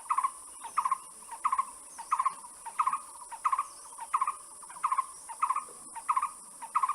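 A bird calling one short note over and over, evenly spaced at about three notes every two seconds, roughly eleven times, over a steady faint high hiss.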